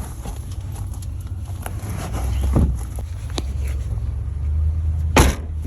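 Low, steady rumble of a car, growing stronger about two seconds in, with one sharp thump about five seconds in.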